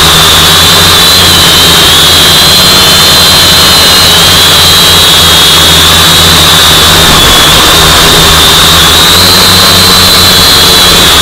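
FPV quadcopter's electric motors and propellers heard from the onboard camera: a loud, steady high whine that wavers slightly in pitch with throttle, over a dense rush of prop and air noise.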